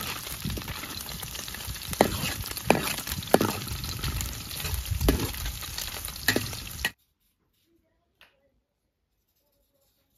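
Cubes of sheep tail fat sizzling as they fry in a wide metal pan, stirred with a perforated steel skimmer that clinks and scrapes against the pan several times. The sizzling cuts off abruptly about seven seconds in, leaving near silence.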